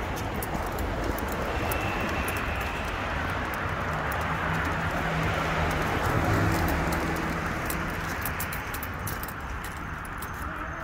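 Road traffic on a street, with one car driving past that is loudest about six seconds in. Light clicking and jangling runs throughout as someone walks along the sidewalk.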